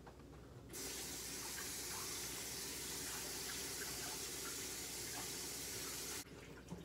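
Kitchen tap running steadily, turned on about a second in and shut off near the end, as water rinses honey off a piece of separated beeswax.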